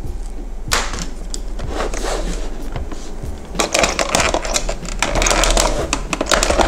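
Plastic housing of a VW T4 instrument cluster being pried open: a dense run of sharp plastic clicks, snaps and scraping as its clips are levered and unlatched, busiest in the second half.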